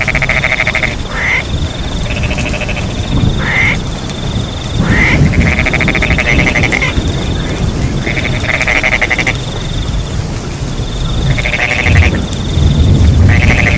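Frogs calling in repeated short pulsed trills, one every second or two, some with a quick rising note, over a steady high chirring of crickets. A low rumble of rain and wind lies underneath and swells near the end.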